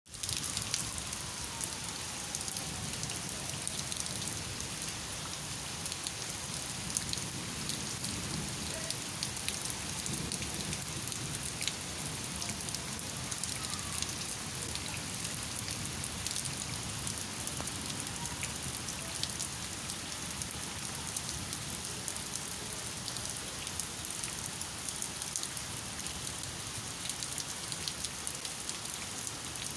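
Steady rain falling, with many small ticks of individual drops.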